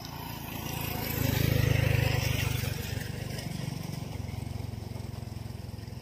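Small motorcycle engine running steadily. It swells about a second in and eases back after about three seconds.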